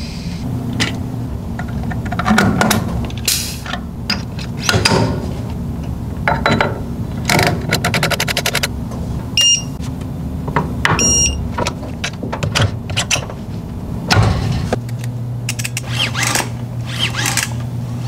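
Clicks, clinks and taps of metal parts being handled and fitted on a Fox Float X2 rear shock, including a quick run of even clicks a little past the middle, over a steady low hum. Two short high-pitched beeps sound about halfway through.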